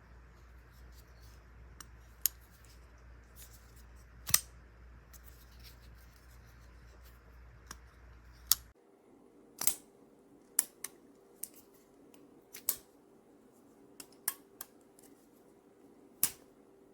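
CIVIVI Chevalier button-lock folding knife being flicked open and snapped shut: about a dozen sharp metallic clicks at irregular intervals.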